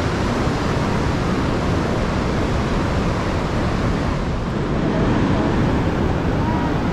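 Steady, loud roar of a large waterfall and its fast-flowing river close by: Vernal Fall on the Merced River, heard from the top where the water drops off.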